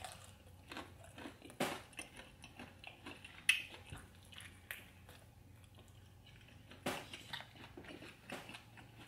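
A person chewing and biting into fried chicken coated in spicy sauce, close to the microphone: short, irregular mouth sounds, with sharper bites about a second and a half in, about three and a half seconds in and just before seven seconds.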